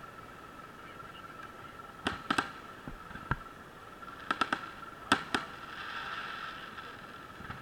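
Aerial fireworks bursting overhead: sharp bangs in quick clusters about two, four and five seconds in, then a soft crackling fizz as the burst's stars glitter out.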